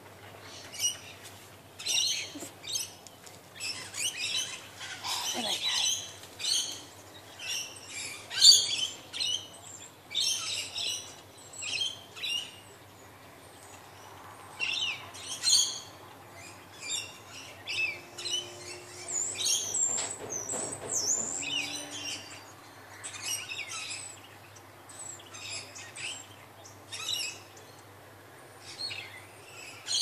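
Birds chirping and calling in many short, high-pitched notes, busiest in the first two-thirds and thinning out near the end.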